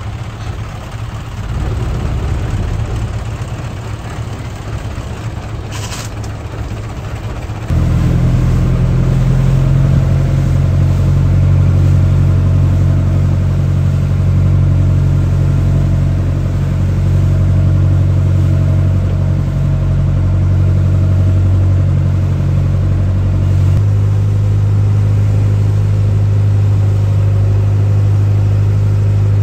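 Boat engine on a Bangkok river boat: a quieter low drone at first, then from about eight seconds in a loud, steady engine hum as the boat travels along the river, changing pitch slightly about 24 seconds in.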